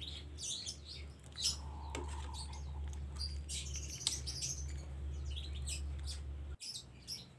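A metal ladle stirring a thick coconut-milk curry in an aluminium pot, giving short soft scrapes and clinks over a steady low hum. The hum cuts off abruptly near the end.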